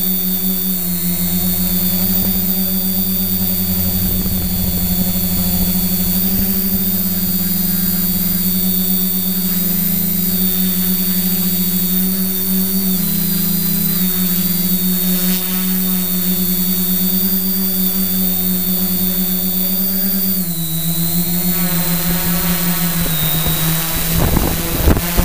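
Quadcopter's electric motors and carbon-fibre propellers whining steadily in flight, heard from the on-board GoPro: a steady low hum with a high whine above it, the pitch dropping slightly about twenty seconds in. Wind buffets the microphone near the end.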